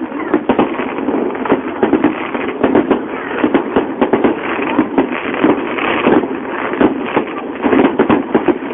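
Aerial fireworks bursting close overhead in a dense, continuous barrage: many sharp bangs a second running together, with no pause.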